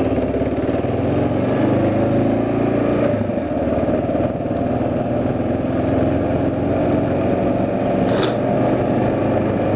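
Motorcycle engine running steadily under a rider on the move, its pitch changing only slightly.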